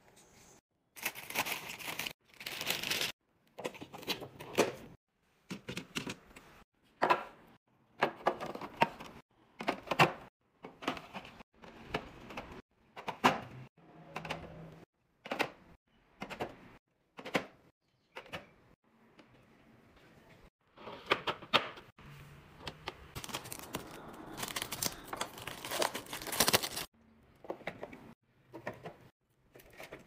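Groceries and packaging handled into clear plastic organizer bins: rustling paper towel and crinkling wrappers, with clicks and clinks of aluminium drink cans and plastic set down, in short bursts with pauses. About three quarters of the way through there is a longer stretch of crinkling.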